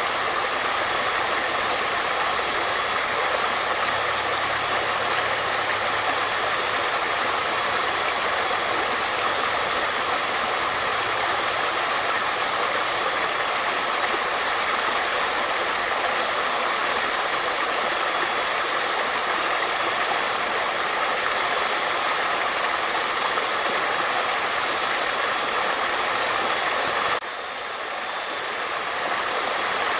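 Water flowing steadily with a dense, even rushing hiss. It drops suddenly near the end and swells back up over a few seconds.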